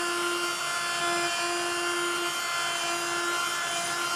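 Wolf Combo Tool Plus, a 260-watt corded oscillating multi-tool, running with its blade raking out the grout between ceramic wall tiles: a steady buzzing whine over a scraping hiss.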